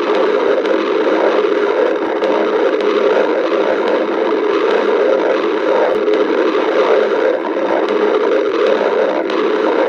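A hungry human stomach growling: a loud, unbroken, low gurgling rumble that wavers slightly but never stops.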